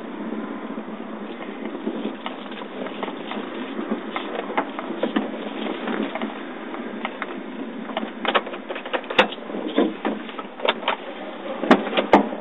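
Inside a car moving slowly: a steady hum of the car running, with scattered ticks and taps that come more often later on, and a few sharp knocks near the end.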